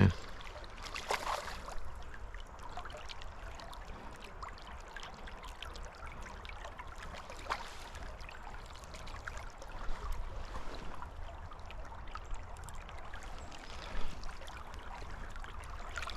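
Creek water running and trickling steadily, with a few brief sharp sounds about a second in and again near 7, 10 and 14 seconds.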